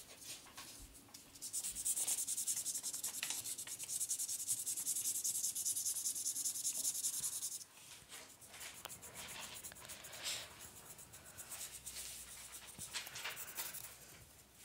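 Thin-tipped felt marker scribbling fast back-and-forth strokes across folded paper while colouring it in. A steady run of rapid strokes stops abruptly about eight seconds in, and quieter, sparser strokes follow.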